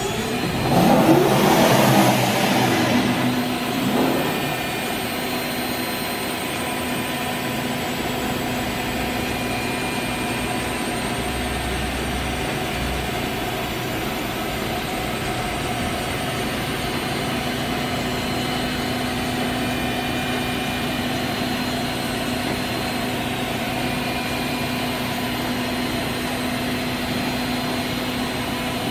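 A CNC router running with a steady machine drone and several steady whining tones while its spindle head moves between positions. A louder rushing surge starts about a second in and fades by three seconds, and a smaller one follows near four seconds.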